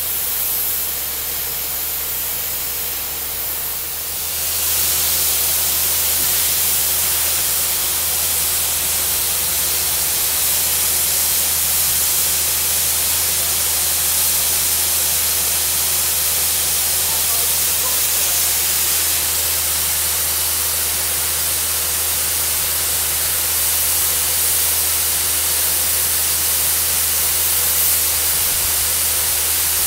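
Compressed air from a high-pressure air compressor blowing muddy water and sand up out of a borewell casing during bore cleaning: a loud, steady hiss and rush of spray over a low, even hum. About four seconds in the blast grows louder and hissier.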